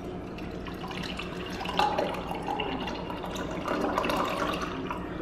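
Juice poured from a carton into a glass, the stream splashing as the glass fills.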